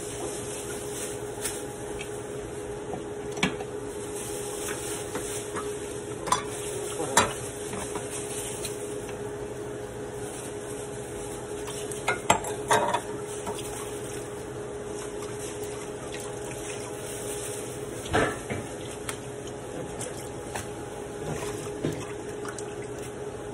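Kitchenware being handled: scattered clinks and knocks of dishes, pots and utensils, a few clusters louder than the rest, over a steady background hiss with a low hum.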